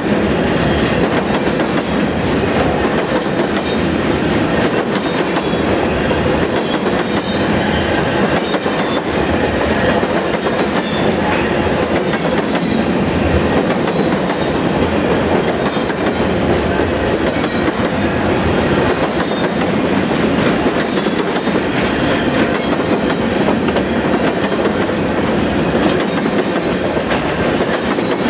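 Covered hopper cars of a freight train rolling past close by: a steady rumble of steel wheels on rail, with a rhythmic clacking as the wheel sets pass.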